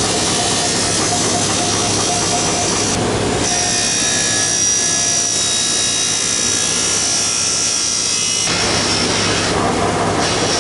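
Power grinder running continuously against TIG-welded filler on an aluminum wheel rim, grinding the welds down to round the rim out. A higher whine comes in about three seconds in and drops away after about eight and a half seconds as the grinder's load changes.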